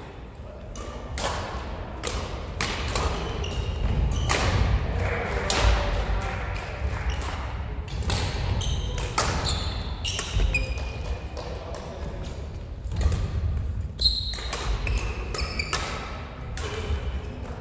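Badminton rally: rackets striking the shuttlecock again and again at irregular intervals, with feet thudding and shoes squeaking on the wooden court floor.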